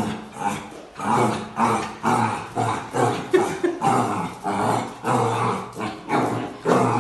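Puppy barking at its own reflection in a mirror, short barks with a growl in them in a quick series of about two a second.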